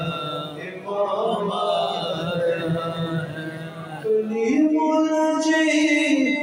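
Men's voices chanting together, then, about four seconds in, a single man's voice through a microphone and loudspeakers takes over, singing long held notes.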